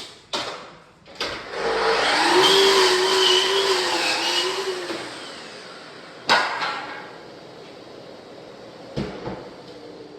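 An electric power tool motor running loudly for about four seconds, its pitch wavering, with sharp knocks just before it starts, a hard knock a little after it stops, and two more knocks near the end.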